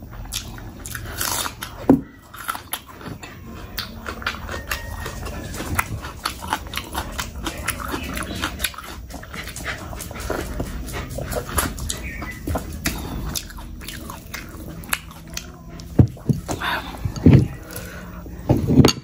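Close-up eating sounds of rice and curry eaten by hand: wet chewing, lip smacks and sucking, as a stream of short clicks. There is a bite into a boiled egg about halfway through, and the loudest smacks come near the end.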